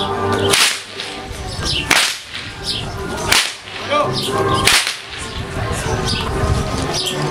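Hungarian herdsman's whip (karikás) cracking four times, with loud sharp cracks about a second and a half apart in an even rhythm.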